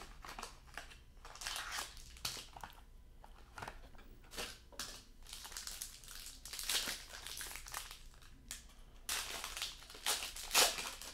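A sealed box of trading cards handled and opened, then a foil card-pack wrapper crinkling and tearing as it is opened by hand. The crinkling comes in irregular rustles, loudest near the end.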